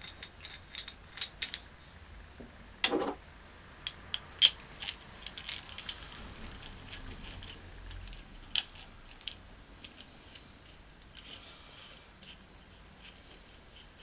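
Small steel engine parts clinking as they are handled and set down on a hard surface: the primary gear, dished washer and flanged bolt from a Honda 400/4. Scattered light clicks, with a louder clank about three seconds in and a quick run of clinks, one briefly ringing, a little later.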